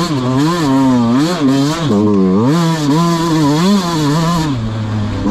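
Dirt bike engine revving up and down over and over as the throttle is worked, then holding a steady lower note near the end.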